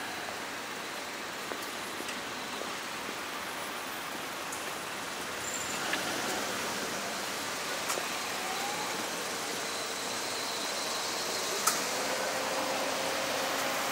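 Steady street ambience: a continuous haze of road traffic, with a few faint ticks and one sharp click near the end.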